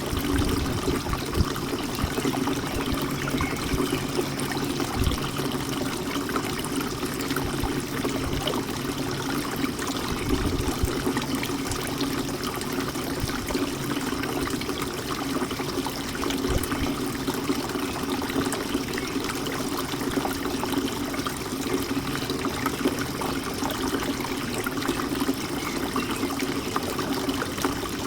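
Water fountain trickling and splashing steadily.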